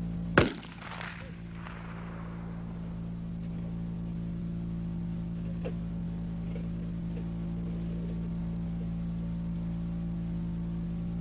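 A single rifle shot about half a second in, its echo trailing off over the next second or so, over a steady electrical hum.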